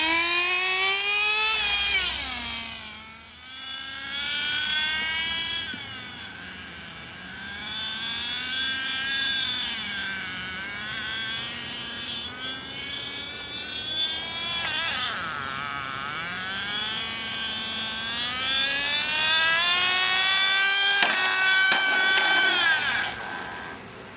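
Small two-stroke glow (nitro) engine of an RC car revving up and down as the car is driven, a high whine rising and falling over and over. It climbs sharply at the start and dips in level about three seconds in.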